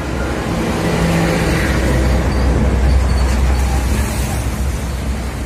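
Mini paredão car sound-system speaker box playing music loudly, the deep bass loudest, swelling to a peak about three seconds in.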